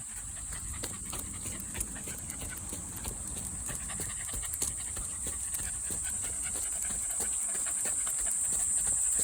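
A Shiba Inu panting, with a steady high buzz of cicadas behind it that grows louder near the end.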